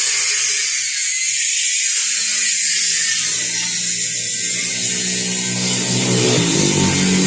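Motorised grass chopper machine running steadily, with a loud high hiss over a low motor hum that grows stronger near the end.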